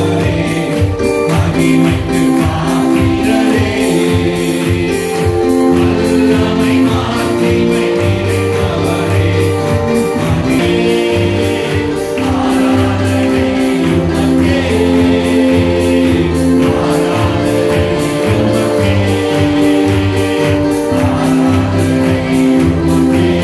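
Live worship song: a man singing over sustained keyboard chords and a steady drum beat.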